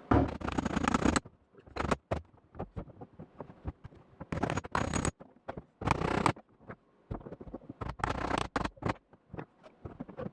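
Hammer and dolly working a tack-welded steel patch seam in a car's quarter panel: irregular clusters of quick metallic taps with pauses between them, opening up gaps that have tightened as the tacks pulled the panel.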